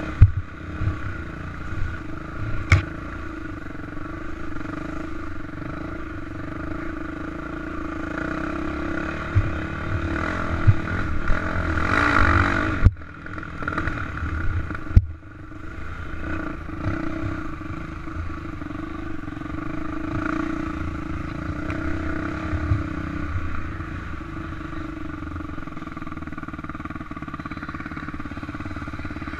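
Dirt bike engine running under throttle on a rough dirt trail, with sharp knocks and clatter from the bumps. About halfway the engine revs up and then drops off abruptly, and it runs evenly and more steadily through the later part.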